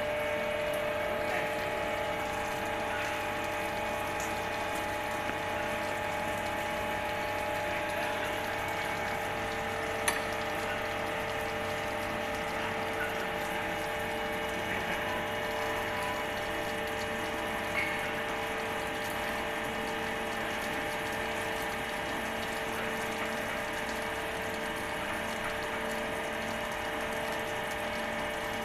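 Okuma MC-6VA CNC machining center running steadily: a whine of several constant tones over a hissing, liquid-like noise, with a sharp click about ten seconds in and another near eighteen seconds.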